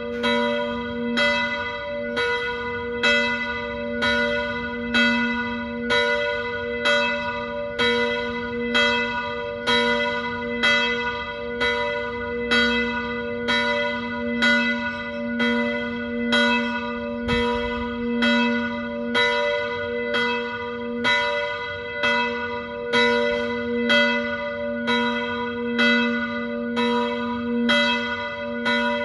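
Church bells ringing a peal: a steady, unbroken run of strokes, each ringing on over a deep hum that carries on between them.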